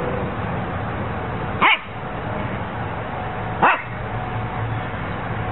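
Siberian husky giving two short barks about two seconds apart, each falling steeply in pitch, over steady background noise.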